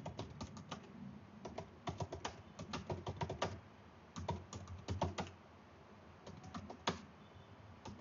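Computer keyboard being typed on: quick runs of keystrokes in short bursts with brief pauses between words, one keystroke louder than the rest about seven seconds in.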